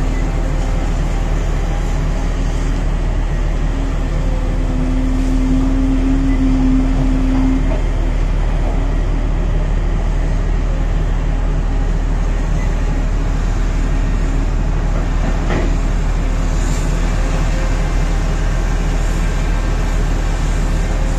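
Heavy diesel engines of a Volvo EC950E crawler excavator and a waiting Belaz haul truck running steadily, loud and low, while the excavator swings and loads. A steady higher tone stands out for a few seconds around five seconds in, and a single sharp knock comes about fifteen seconds in.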